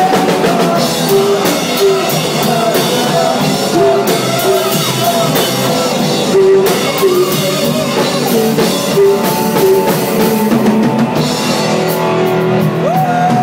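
Live rock band playing loudly: a woman sings the lead through a microphone over a drum kit and electric guitar, holding one long note near the end.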